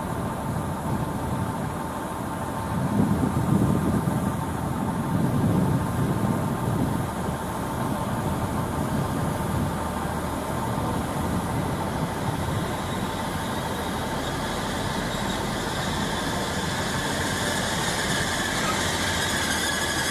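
Grand Central Class 180 diesel multiple unit running slowly into the platform, its diesel engines rumbling most loudly a few seconds in. A high brake squeal rises over the last few seconds as the train slows to a stop.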